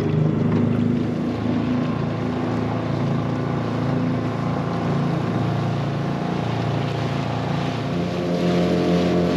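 Small outboard motor on a dinghy running steadily under way. Its note changes a little near the end.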